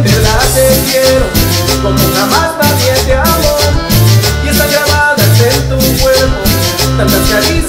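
Music with a steady beat and a repeating bass line.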